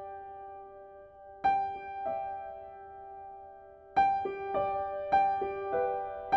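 Slow, gentle piano music: notes struck a few at a time, each left to ring and fade, with a quicker run of notes from about four seconds in. No rain is heard.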